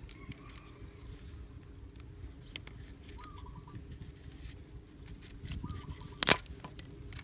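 Small clicks and rustles of a rubber band being stretched and wound around a blue PVC pipe joint, with one sharp click about six seconds in. Short chirping bird calls sound in the background three times.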